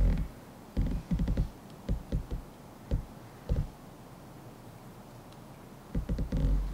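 Short bursts of low rumbling on the camera microphone: a quick cluster about a second in, a few single bumps over the next few seconds, and another cluster near the end.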